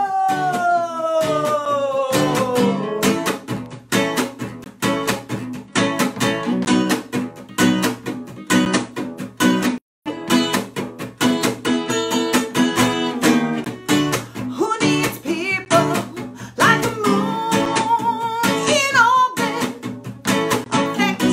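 Acoustic guitar strummed steadily under a woman's singing voice. She opens with one long held note that slides down, the guitar carries on alone through the middle, and she holds another long note near the end. The sound cuts out for a moment about ten seconds in.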